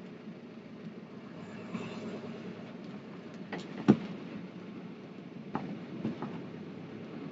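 Steady road rumble of a vehicle riding along a paved road, with a few sharp knocks and rattles: the loudest comes about halfway through, and a couple more come near the end.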